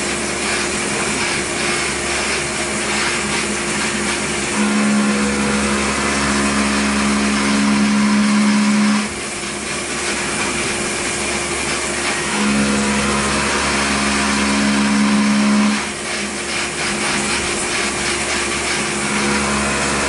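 CNC milling machine's end mill cutting a metal part under flood coolant: a steady machining noise, with a louder low hum that comes in three times, each lasting about three to four seconds.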